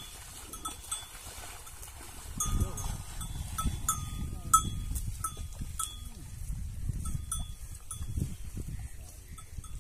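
Small metal bells clinking and ringing at irregular intervals, over a low rumble that starts a couple of seconds in.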